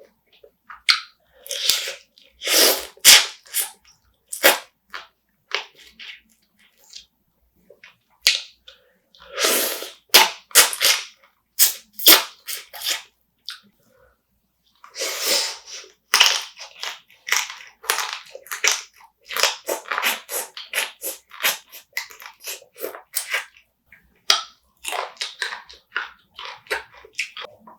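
Close-miked eating of spicy marinated raw crab: repeated crunching and cracking of crab shell between the teeth, with wet chewing, sucking and lip smacks in quick irregular clusters.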